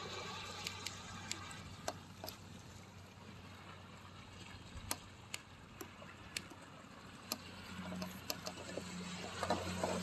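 Small waves lapping and splashing at the shoreline: a swelling wash of water with sharp little splashes and clicks scattered through it, building up again near the end. A steady low hum runs underneath.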